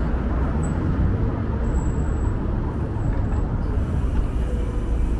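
Steady street and traffic noise heard from a moving bicycle, dominated by a deep, even rumble.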